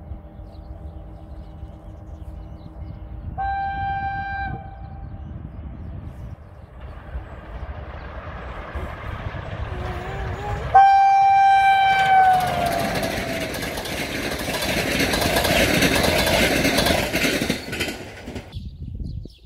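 Romanian electric locomotive EA 086 hauling a passenger train sounds its horn: a short blast about three seconds in, then a longer, louder blast near the middle whose pitch drops at the end. The rush and clatter of the train passing follows and cuts off shortly before the end.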